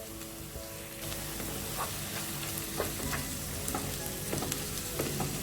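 Diced potatoes, onions and freshly added tomatoes sizzling in olive oil in a non-stick pan, with a spatula stirring and tapping against the pan now and then. The sizzle gets a little louder about a second in.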